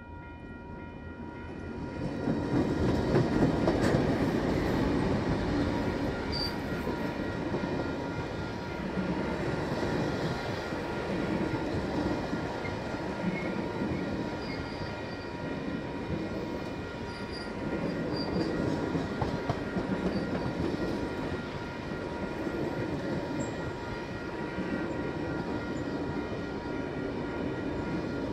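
Heritage diesel-hauled passenger train passing a level crossing. The locomotives' diesel engines are loudest about three seconds in as they go by, followed by the steady rumble and clatter of the stainless steel carriages' wheels on the rails. The crossing's warning bells ring steadily throughout.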